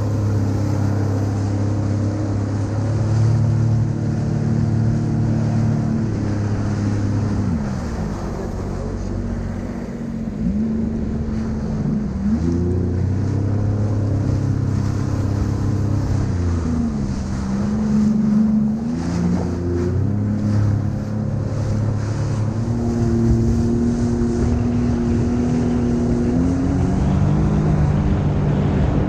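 Sea-Doo personal watercraft engine running under way, its pitch dipping and climbing back several times, with wind noise on the microphone over it.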